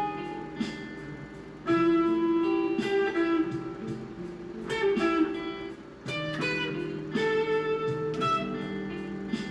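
A guitar being played solo: notes and chords plucked one after another with pauses between phrases, with no accompaniment.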